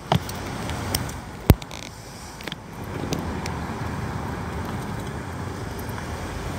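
Steady road traffic noise from nearby cars, with a few sharp knocks of camera handling, the loudest about a second and a half in.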